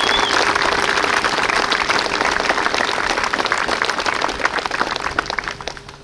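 Crowd applause, many hands clapping in a dense patter that fades out near the end. There is a short whistle right at the start.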